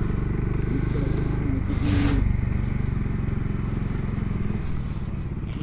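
TVS Ntorq 125 scooter's engine running under way on a rough off-road track, a steady low rumble with road and wind noise.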